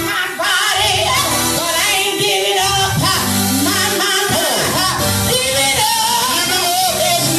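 Church music: singing over instrumental accompaniment, with sustained low bass notes underneath.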